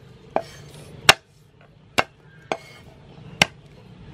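Knife blade striking garlic cloves on a thick round wooden chopping block, crushing them. Five sharp knocks come at irregular intervals of about one a second, and the second is the loudest.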